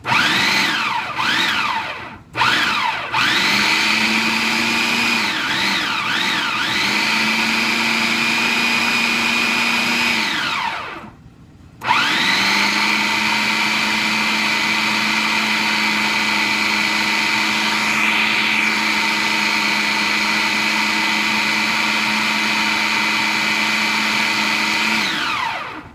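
Electric food processor motor chopping boiled chicken and green beans. It comes in short pulses at first, with the motor pitch dipping and recovering as the blade bites into chunks. Then it stops for about a second and settles into a long steady run that winds down near the end.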